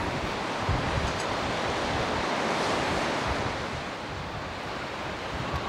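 Sea waves washing on the shore, swelling about halfway through and easing off again, with wind buffeting the microphone in low, uneven rumbles.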